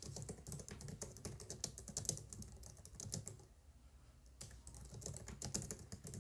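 Typing on a computer keyboard: quick runs of keystrokes, with a lull of about a second a little past the middle before the typing picks up again.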